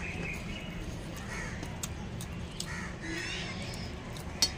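Crows cawing a few times, with a sharp click near the end.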